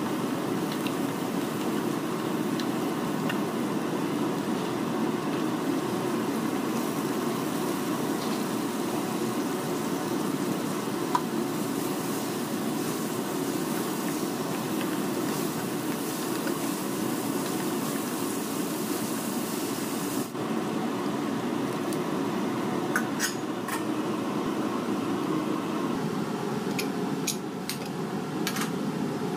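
A plastic spatula stirring onions, spices and broad beans frying in a non-stick pan, over a steady low rushing noise, with a brighter sizzling hiss for several seconds in the middle. Near the end, several sharp clinks of metal pots and lids.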